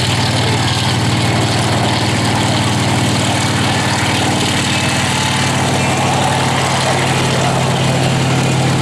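PZL-Świdnik Mi-2 helicopter in flight, its main rotor and twin turboshaft engines giving a steady, low drone.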